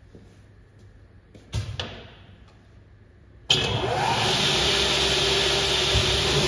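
A clunk about a second and a half in, then, about halfway through, the Pertici Univer 330 double mitre saw is switched on: a sudden, loud, steady running noise with a short rising whine as the motors spin up.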